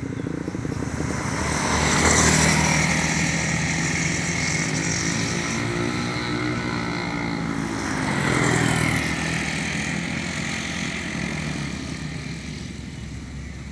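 Motorcycle engines running, swelling loud twice as they pass close by, about two seconds in and again near the middle.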